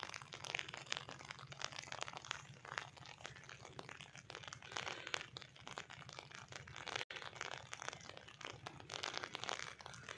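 Faint small clicks, scrapes and crackles of hands and tools working on a battery charger's circuit board, over a low steady hum.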